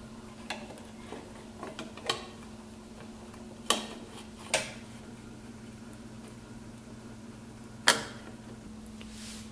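Scattered clicks and taps as a circuit board is handled and seated into the ChilLED Drive LED controller's white case; the sharpest come about four seconds in and near the end. A steady low hum runs underneath.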